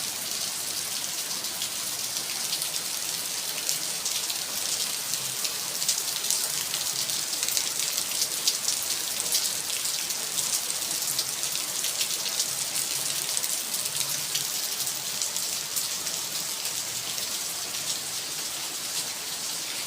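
Rain falling steadily: an even hiss of downpour with many sharp single drop impacts.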